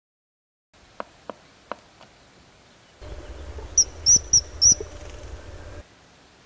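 Three sharp clicks, then a common kingfisher gives four shrill, high-pitched calls in quick succession over a low rumble.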